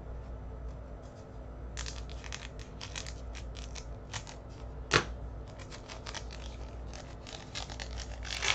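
Pokémon trading-card packs and cards being handled: a quick run of short crinkles and rustles, with one sharp snap about five seconds in.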